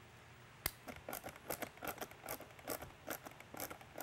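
A hand nut driver tightening the board-mounting nut inside a small polycarbonate siren housing. A sharp click comes about half a second in, then an uneven run of short scraping strokes, several a second, as the driver is turned.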